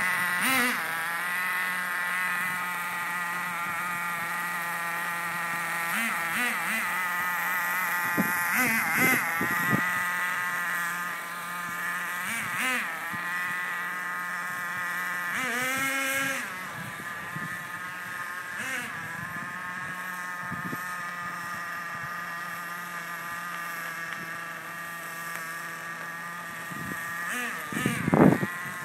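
A racing engine running at high, steady revs, with a buzzing whine and brief dips in pitch every few seconds. A few loud irregular knocks near the end.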